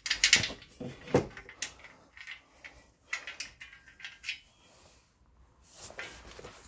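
Handling and assembly noises as the delivery box and its mounting hardware are worked: a dozen or so short knocks, clicks and small metallic rattles, with brief scrapes between them.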